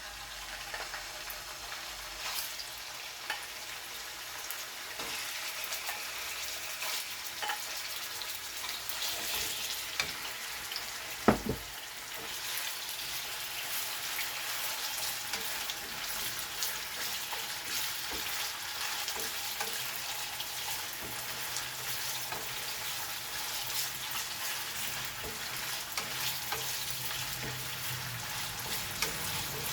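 Diced chicken breast sizzling and crackling in hot cooking oil in a pan, steady throughout, with one loud sharp knock about eleven seconds in.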